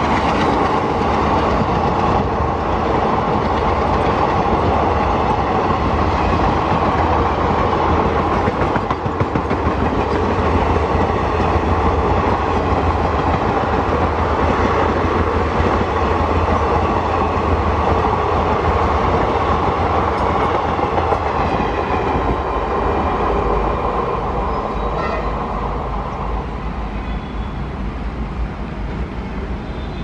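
Passenger coaches of an express train rolling past at speed, their wheels clattering over the rail joints in a steady rumble that fades over the last several seconds as the train moves away.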